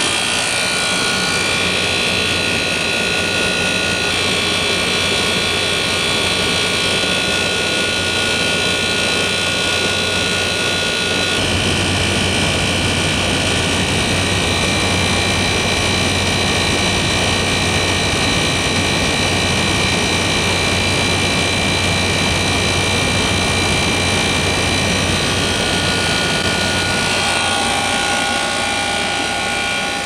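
A 1988 Carrier International Series 27,500 BTU through-wall air conditioner running in cooling mode, its Toshiba rotary compressor working: a steady rush of fan air with a constant hum and whine beneath. The sound changes character about eleven seconds in and again near the end.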